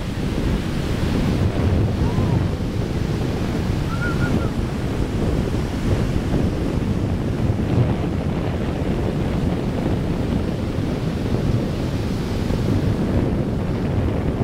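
Rough ocean surf breaking and washing in a steady, heavy rush, with wind buffeting the microphone.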